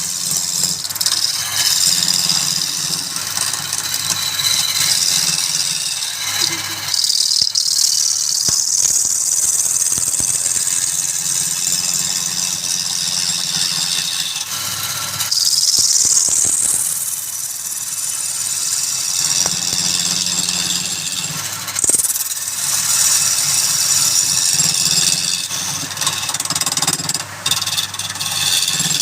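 Wood lathe running with a steady motor hum while a turning tool cuts the spinning wood, a high hissing scrape that sweeps up and down in pitch as the cut changes.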